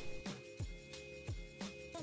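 Quiet background music: held tones over a regular beat of deep drum hits.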